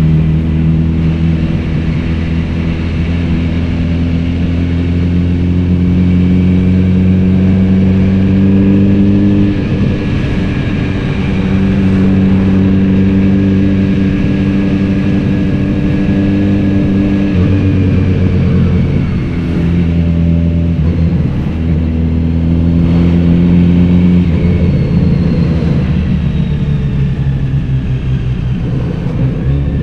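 Kawasaki Z900RS inline-four motorcycle engine running through a BEET exhaust under way, its note holding fairly steady and dropping a few times before rising again, as with throttle changes and gear shifts.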